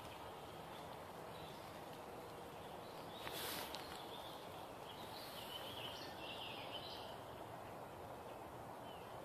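Faint woodland ambience: a low steady outdoor hiss with distant birds chirping a few times around the middle, and one brief rustle about three and a half seconds in.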